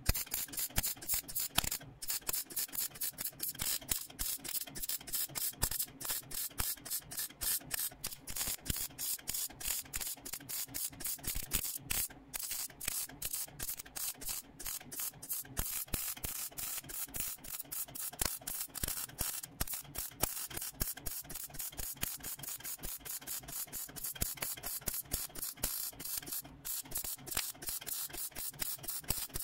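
MIG welder arc crackling along a steel wheel-arch seam, laid down as stitch welds in a quick, even run of short bursts, about three a second.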